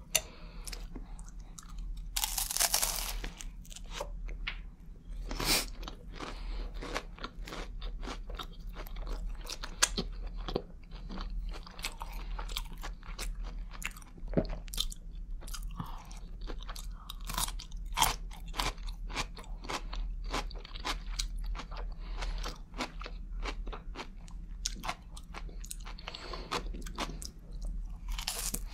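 Close-miked eating: crunching bites of a crisp rice cake topped with smashed avocado and of a pickle, with many small wet mouth clicks of chewing in between. The loudest crunch comes about two seconds in, another just after five seconds. A low steady hum runs underneath.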